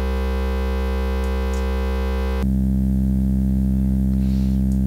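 Waldorf Microwave wavetable synthesizer holding one sustained note. About halfway through, its timbre changes abruptly to a duller, bass-heavier tone as the newly saved wavetable takes effect on the synth.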